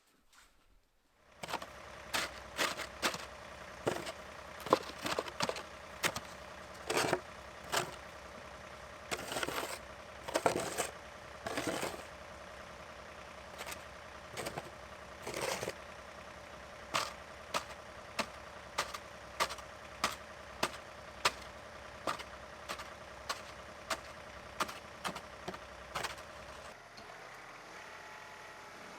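An engine running steadily, with irregular sharp clanks and knocks over it, a couple every second or so. Near the end the engine sound changes to a different steady running note.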